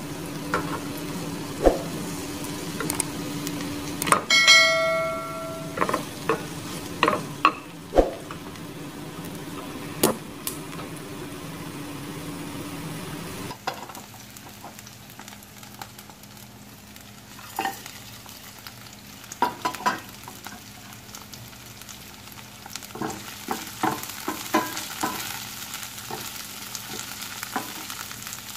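Spring onions and chillies sizzling in hot oil in a nonstick frying pan, with scattered clicks and taps of ingredients going in and a wooden spatula stirring. A short, loud ringing clink sounds about four seconds in, and a low steady hum drops away about halfway through.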